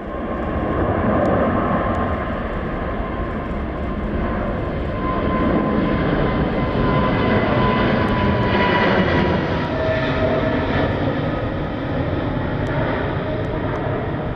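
Boeing 777-300ER's twin GE90 turbofans at takeoff power during departure: a loud, steady jet rumble with a thin whine, swelling about a second in and staying loud throughout.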